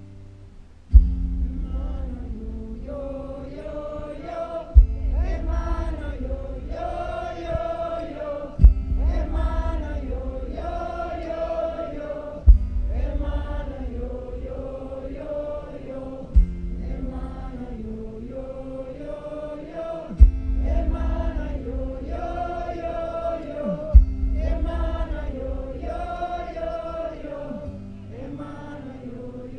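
Live music: wordless sung, chant-like voices held over a low sustained drone, with a deep booming drum beat about every four seconds.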